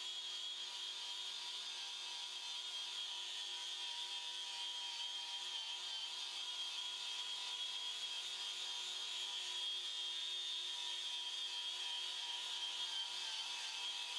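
Angle grinder running steadily with a high whine, its paint removal disc worked against a steel pipe to strip the paint to bare metal.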